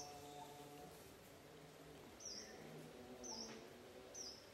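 Faint, short high-pitched animal chirps, each dropping in pitch: one at the start, then three about a second apart in the second half, over quiet background noise.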